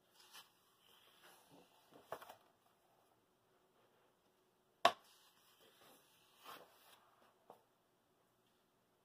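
Pages of a coloring book being turned by hand: soft paper rustles and swishes, with a sharp tap a little before halfway through as the loudest sound.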